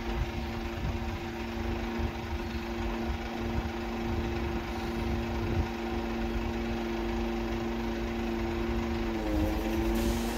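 Mercedes Sprinter 513's diesel engine running at idle with a steady hum, its pitch dipping and wavering briefly near the end.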